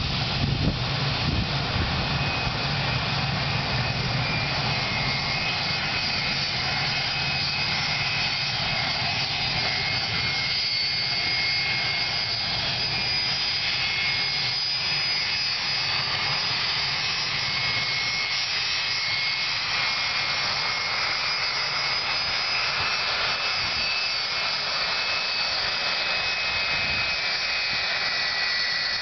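Jet airliner engines running at taxi power, a steady noise with high whining tones that grow stronger toward the end as a Boeing 757-200 taxis closer; an Airbus A320 is also taxiing.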